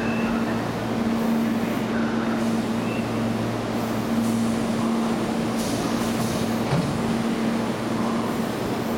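Tobu 10030-series electric commuter train standing at the platform with its doors open, its onboard equipment giving a steady low hum. A short hiss comes a little past halfway, and faint voices sound under it.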